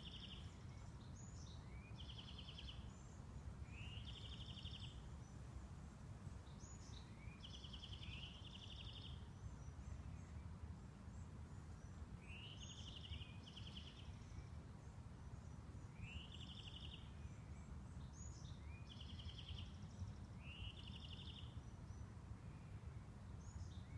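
A bird singing faintly: the same short phrase, a quick upward sweep running into a trill, repeated every couple of seconds over a low steady background rumble.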